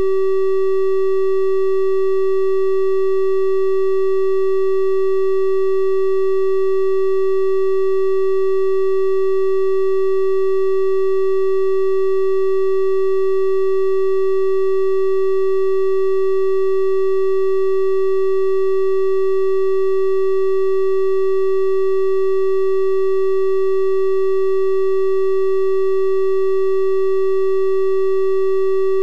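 Synthesized 384 Hz triangle-wave tone, held steady at a constant pitch and level. It sounds mellow and flute-like, with faint higher overtones above the fundamental.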